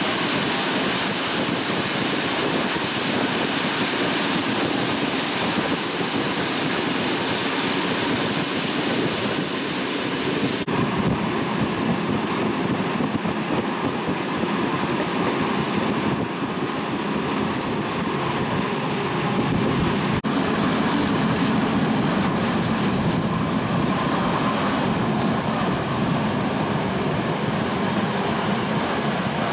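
Flåm Railway train running along the line, a steady rumble of wheels and carriage. For about ten seconds in the middle a thin, steady high-pitched whine rides over it.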